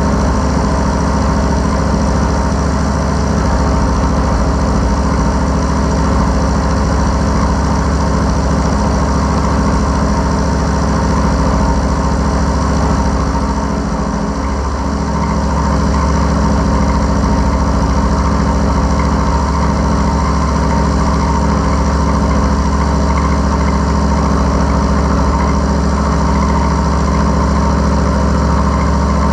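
Small milling machine running while its cutter takes a cut along a mild steel block: a steady machine hum and cutting noise that dips briefly about halfway through.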